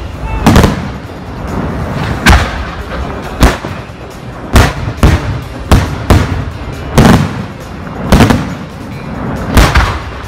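Fireworks display: aerial shells bursting overhead in a quick, irregular series of loud bangs, about a dozen, each half a second to a second and a half after the last, over a steady low rumble.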